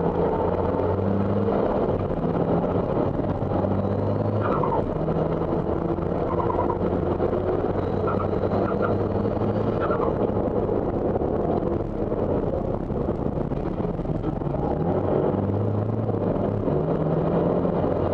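Isuzu D-MAX race pickup's 3.0-litre four-cylinder common-rail turbo-diesel, heard inside the cabin, pulling hard up through the gears with breaks in its note at each shift, then backing off as the truck slows for a corner in the second half. A faint rising whistle is heard twice, around 4 s and 8 to 10 s.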